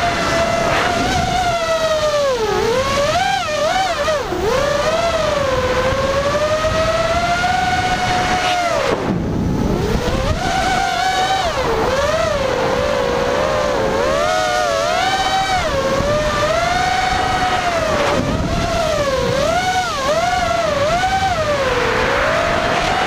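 Racing quadcopter's brushless motors and props whining, the pitch rising and falling constantly with the throttle. About nine seconds in, the throttle is chopped: the whine drops to a low hum for about a second, then climbs back up.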